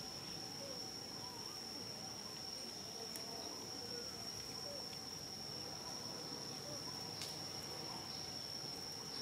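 Steady, unbroken high-pitched drone of insects, with faint short chirps and a couple of soft clicks scattered through it.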